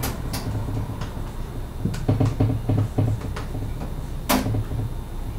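Dry-erase marker writing on a whiteboard: a run of short scratchy strokes and clicks of the tip on the board, with a sharper knock about four seconds in, over a steady low room hum.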